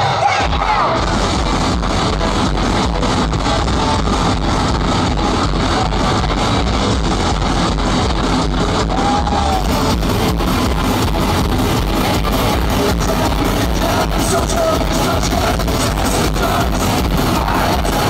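Industrial rock band playing live and loud: electric guitar over a steady, driving beat.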